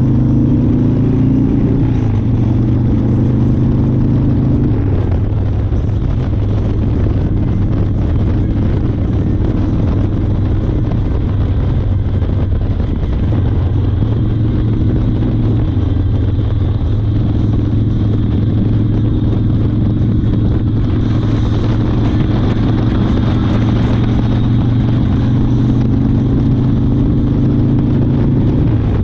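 1992 Harley-Davidson Fat Boy's Evolution V-twin running steadily on the move, its engine note shifting in pitch a few times.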